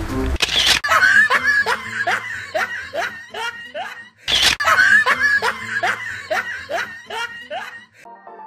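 A laughing sound effect over music: a short noisy burst, then a fast run of high 'ha-ha' laughs, about three a second. The same clip plays twice back to back and stops near the end, when softer music takes over.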